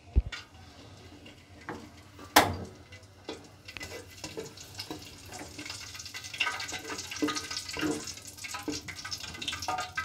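Whole garam masala spices (bay leaf, cardamom pods) sizzling and crackling in hot oil in a metal pot, the crackle growing denser from about four seconds in. A single sharp knock about two and a half seconds in is the loudest sound.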